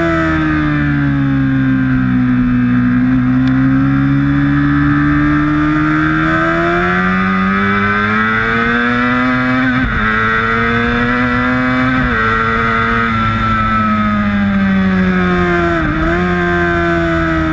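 Onboard sportbike engine at speed, its note sinking, then climbing steadily under acceleration, broken by gear changes about ten and twelve seconds in, with a brief dip near the end. Wind rushes over the microphone throughout.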